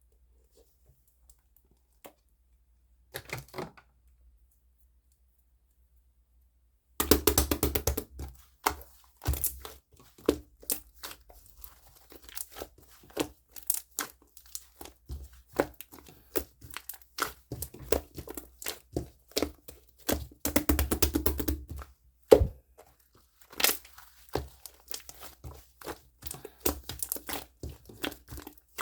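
Slime being squished and pressed by hand, giving rapid wet pops and crackles. A brief bit of handling sounds about three seconds in; then, from about seven seconds on, the popping runs almost continuously, busiest at the start of that run and again about two-thirds of the way through.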